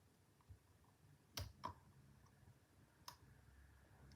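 A few faint, sharp clicks of a lock pick and tensioner working the spool- and serrated-pinned pin stack of a Federal 95 padlock, about three clicks spread over a couple of seconds.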